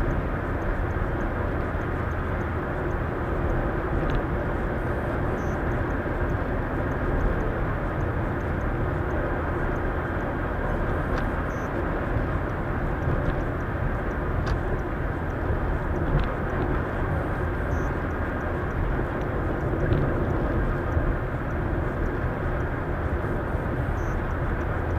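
Steady road and tyre noise of a car cruising at highway speed, heard from inside the cabin.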